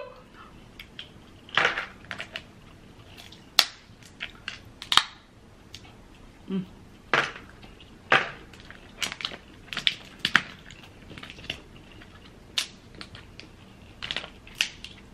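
Snow crab leg shells cracking and snapping as they are broken apart by hand: irregular sharp cracks every second or two.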